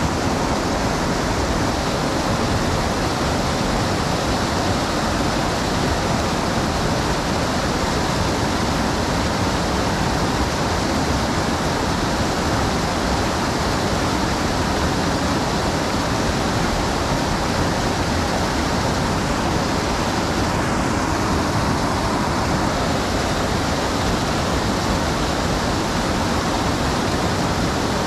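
Creek water rushing, a steady, even rush with no breaks.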